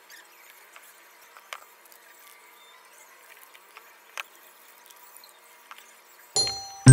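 Faint room hiss with a couple of soft clicks, then a bright chiming note near the end as loud music begins.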